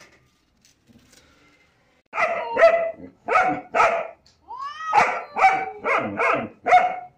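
German shepherd barking repeatedly at a cat, about ten loud barks in quick succession starting about two seconds in.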